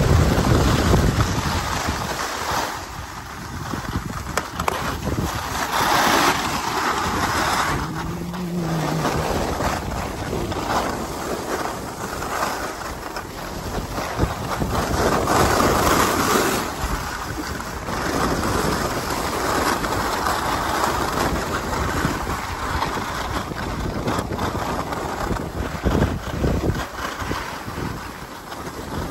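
Skis hissing and scraping over packed snow during a downhill run, swelling and fading with the turns, with wind buffeting the microphone.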